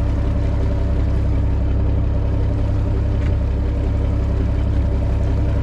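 Fishing boat's engine running steadily: a constant low rumble with a steady hum above it.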